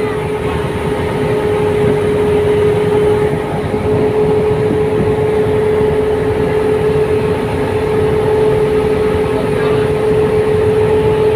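Boat engine running at a steady speed, a constant droning tone, over a loud rushing noise of wind and water.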